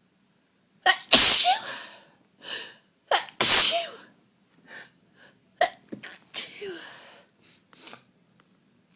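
A woman sneezing twice, loudly, about two seconds apart, each sneeze led by a short sharp intake of breath. Quieter breathy sounds follow. These are head-cold sneezes, with her sinuses blocked up.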